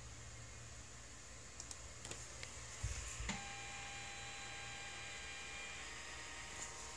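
A few sharp clicks and knocks, then the stepper motors of a home-built 3D printer whining in several steady high tones from about halfway through, the tones shifting about a second before the end; a low hum runs underneath.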